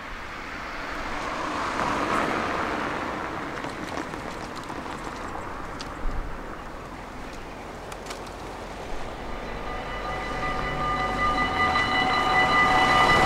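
Road traffic passing over a Dutch level crossing: a vehicle goes by about two seconds in, with a few light knocks later. About three quarters of the way through, the crossing's warning bell starts ringing steadily as the red lights come on and a car drives over the crossing, signalling that a train is approaching.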